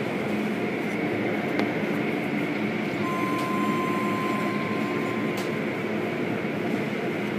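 Automatic car wash heard from inside the car: a steady hiss of water spraying against the windows over the hum of the wash machinery. A thin steady whine comes in for a few seconds midway.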